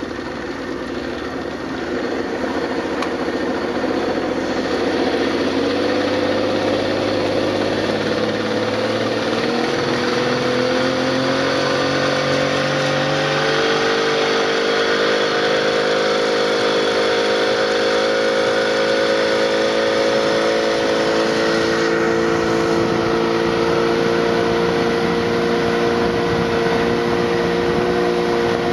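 Motorboat engine speeding up, its pitch rising over about the first dozen seconds, then running steadily under way.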